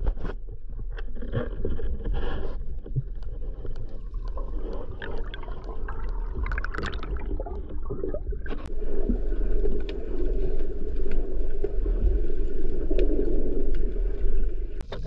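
Muffled underwater noise picked up by a diver's camera: a steady low rumble of moving water with scattered clicks and knocks. Just past halfway it turns into a steadier, louder hiss and rumble.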